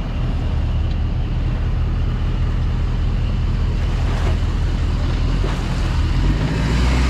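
Jet ski engine running steadily under a wash of water and wind noise; its low hum grows stronger about six seconds in.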